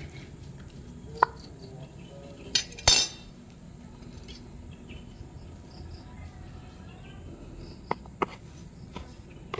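A metal knife clinking and tapping against a hard surface: a light click about a second in, a louder double clatter around three seconds, and two sharp ticks near the end, over quiet background.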